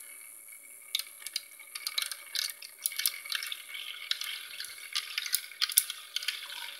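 Tornado-vortex toy running: water swirling and churning in a clear plastic cylinder, with a steady faint whine from its small motor and irregular ticks and splashes as beads and bubbles whirl in the funnel.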